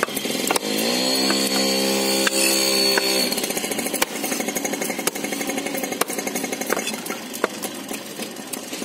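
Heavy knife chopping fish on a wooden block, a series of irregular sharp knocks. From about a second in, a motor starts up, rises in pitch and runs steadily for about two seconds before cutting off.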